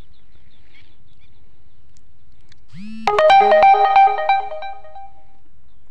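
A short electronic ringtone-like melody of bright notes sounds loudly about three seconds in and lasts about two and a half seconds, over a faint low steady background.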